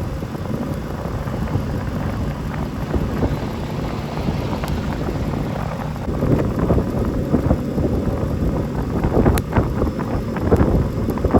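Blizzard wind buffeting the microphone with a steady low rumble. From about halfway through, a run of irregular short scrapes and crunches joins it.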